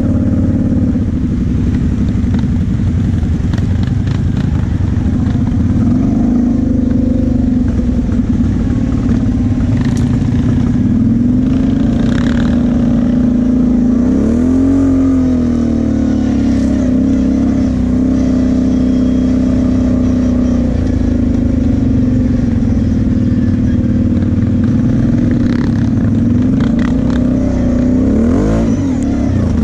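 Kawasaki KFX sport quad's engine running under steady throttle while riding a dirt trail. About halfway through it revs up and back down, and it revs again near the end. A few sharp knocks come from the machine over the rough ground.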